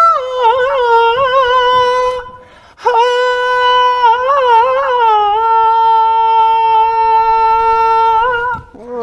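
Unaccompanied solo voice singing high, drawn-out notes with a wavering, ornamented melody. A short phrase breaks off about two seconds in, then a longer phrase ends on a note held steady for about three seconds.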